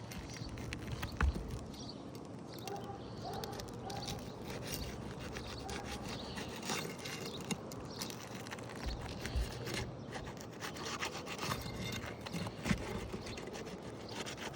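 Scraping and rubbing on asphalt roof shingles, with scattered clicks and knocks, as a shingle is worked loose and its nails are pulled.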